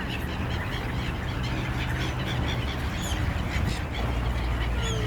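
A flock of birds calling over and over with short, quick calls, over a steady low rumble.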